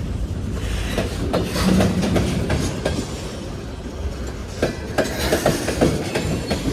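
Freight train rolling past: the cars' wheels clacking over rail joints with a steady rumble, the knocks thickening near the end.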